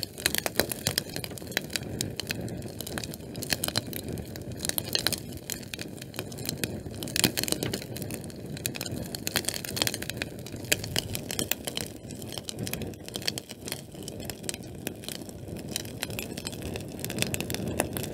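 Fire crackling: dense, irregular pops and snaps over a steady noisy hiss.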